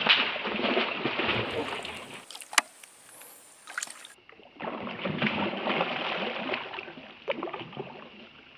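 Fish thrashing and splashing at the surface of shallow swamp water: about two seconds of churning splashes, a short quieter break with a couple of sharp clicks, then another spell of splashing that dies away near the end.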